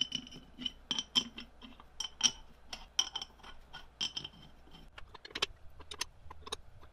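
Steel bolts clinking against a metal gearbox cover as they are set into their holes and turned in by hand, a run of light metallic clicks with a brief ring to many of them. A few sharper knocks come near the end.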